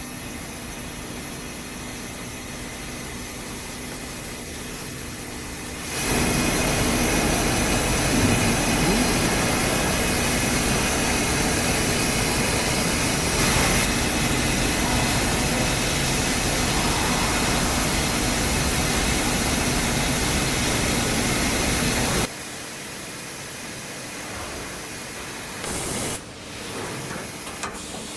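TK35 5-axis CNC machining center at work on a small metal medical drill: a steady machine hum, then about six seconds in a much louder, even rushing noise of cutting that lasts some sixteen seconds and stops abruptly, falling back to the quieter running noise.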